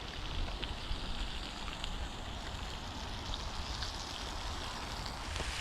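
Sausages and bacon sizzling in a pan over a campfire: a steady frying hiss dotted with small pops and spits of fat.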